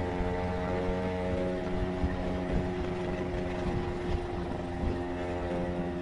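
Motorcycle engine running at a steady cruising speed, its even drone holding one pitch, with a low rumble of wind and road underneath.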